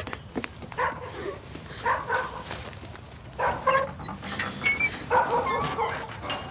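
A dog barking several times in short bursts, the loudest and longest call about five seconds in.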